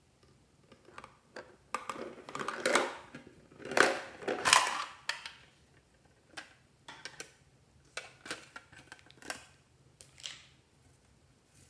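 Hands handling a tin box and a plastic tray of sprinkles and small cosmetic items: a few seconds of clicking and rattling, loudest about four to five seconds in, then scattered light clicks and taps.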